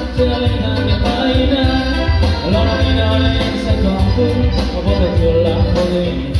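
Electronic keyboard playing a song, with a steady rhythmic bass line under chords and a melody line.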